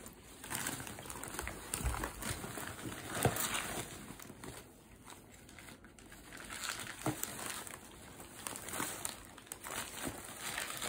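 Gift wrapping crinkling and rustling in irregular bursts as it is pulled and handled.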